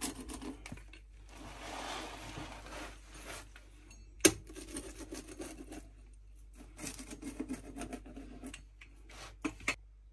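Wheel pizza cutter rolling and scraping through the crisp baked bread crust of a bread pizza in repeated crunching strokes, with a single sharp click about four seconds in.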